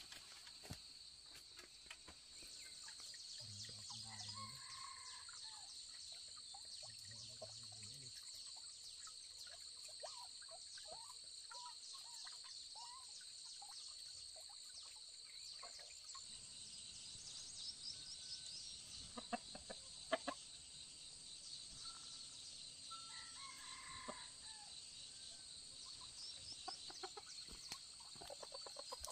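Domestic chickens clucking and a rooster crowing, faint, over a steady high-pitched buzz, with a few sharp knocks near the middle.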